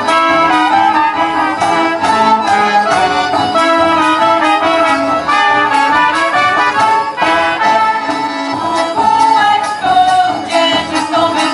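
Polish folk band playing a tune on two accordions and brass instruments, with a double bass underneath.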